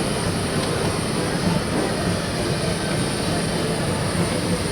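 Steady engine and air noise inside the cabin of an airliner in flight, an unbroken rumble with a low hum.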